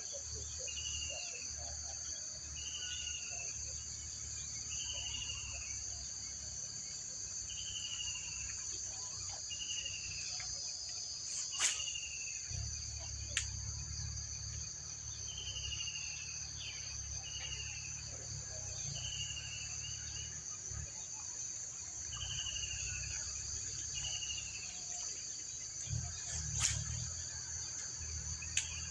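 Steady, high insect chorus of crickets or cicadas, with a short falling chirp repeated about once a second that stops for a few seconds now and then. A few sharp clicks stand out, one about halfway through and one near the end.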